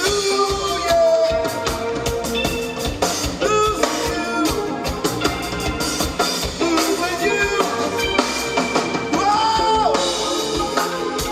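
Live rock band with a reggae-style beat playing amplified through a festival PA: drum kit, bass, guitar and a lead singer's voice.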